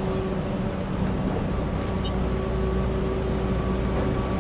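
Steady drone of running machinery: a constant low hum with a few fixed tones over it, unchanging throughout.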